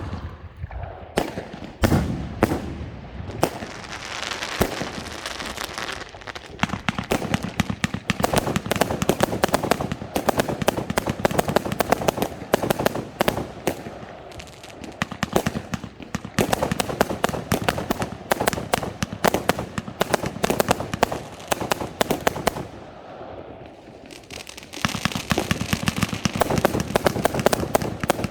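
Large category F4 display fireworks going off: a dense, rapid barrage of crackling reports and bangs that comes in waves, thinning out a few times and building again near the end.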